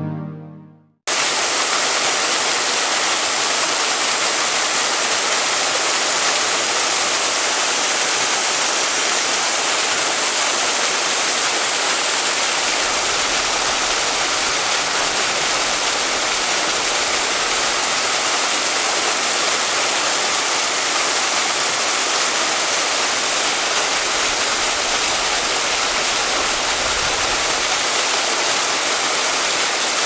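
Small waterfall cascading and splashing onto rocks: a loud, steady rush of falling water that starts abruptly about a second in, just after a soft music tune fades out.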